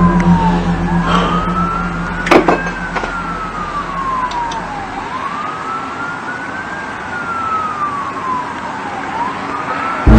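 A siren wailing, one tone sliding slowly up and down about every four seconds. A sharp click sounds about two seconds in.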